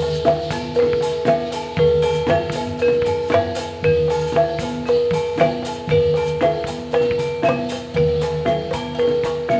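Gamelan-style instrumental accompaniment for a gedruk dance: metallophones strike a repeating pitched melody over a low drum in a steady beat, with no singing.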